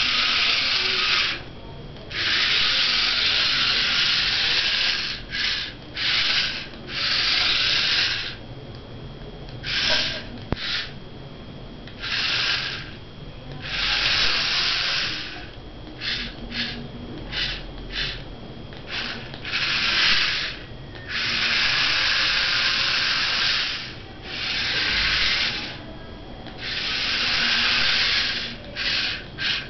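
Small electric DC drive motors of a homemade four-wheel-drive remote-controlled car whirring, switched on and off abruptly as the drive is pulsed. Runs of one to three seconds alternate with clusters of short blips.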